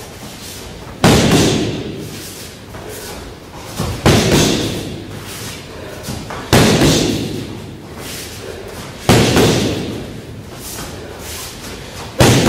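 Boxing gloves striking focus pads in sharp smacks about every two to three seconds, some as a quick one-two, each echoing in the hall.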